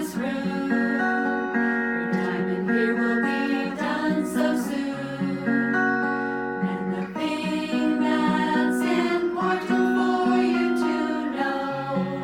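Acoustic guitar music, plucked and strummed, with long held notes over it.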